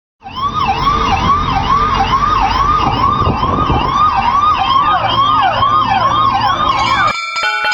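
A siren sweeping quickly up and down, about two and a half cycles a second, over a low rumble. It cuts off suddenly near the end.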